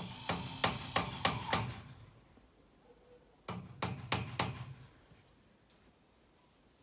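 Knocking on a metal greenhouse frame during assembly. A run of about five sharp knocks is followed by a pause, then another run of about five, after which it goes quiet.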